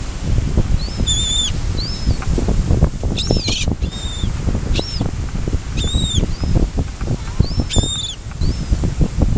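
Small birds chirping: short high calls, some rising then falling in pitch, one to two a second, over a steady low rumble scattered with soft knocks.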